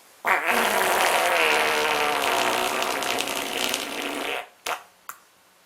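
A long human fart lasting about four seconds, with a wavering pitch, followed by two short puffs near the end.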